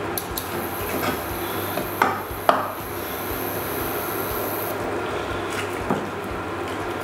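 Knife cutting and scraping through roast chicken on a wooden chopping board, with two sharper knocks of the blade on the board about two seconds in.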